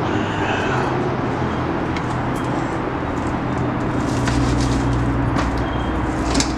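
A motor vehicle's engine running with a steady low hum that shifts lower about four seconds in, with scattered light clicks and knocks.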